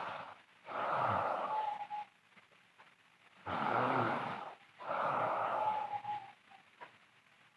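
A sleeping girl snoring loudly, noisy breaths in and out in pairs, with a thin whistle near the end of some breaths. There is a pause of about a second between breaths and a longer quiet stretch near the end.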